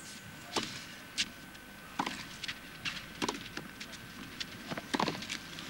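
Tennis point on a clay court: a serve followed by a rally, heard as a string of sharp ball strikes off racket strings and ball bounces, one every half second to second. A faint steady high tone runs underneath.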